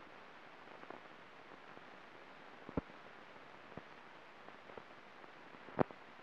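Steady hiss and crackle of an old newsreel film soundtrack, with scattered clicks and pops; the loudest pops come about three seconds in and near the end.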